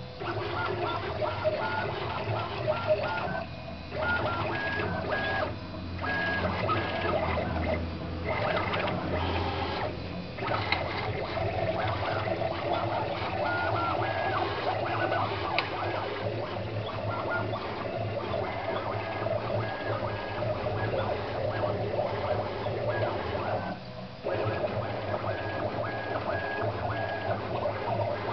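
Stepper motors of a homemade CNC machine driving its three axes along threaded lead screws during a first test run: a steady mechanical buzzing whine whose pitch changes from one move to the next, dipping briefly several times as moves stop and start.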